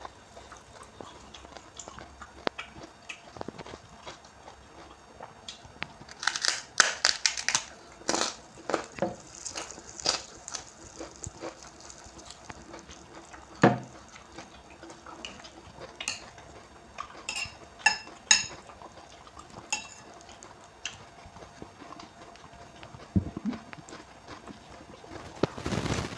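Close-up eating sounds: wet chewing of instant noodles with crunchy raw bean sprouts, with slurps, mouth clicks and utensils clinking against the bowl, coming in irregular bursts.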